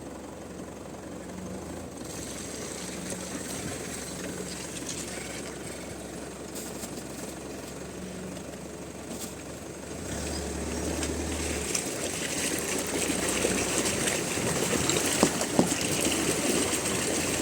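Four-wheel-drive vehicle's engine running as it drives off. The noise grows louder in the second half.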